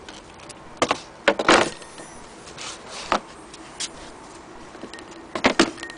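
A few sharp clicks and knocks, the loudest a cluster about a second and a half in and another pair near the end.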